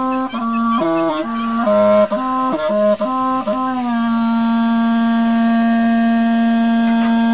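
Hmong raj nplaim, a bamboo free-reed pipe, playing a slow, lonely-sounding melody in short stepped notes, then holding one long steady note from about four seconds in.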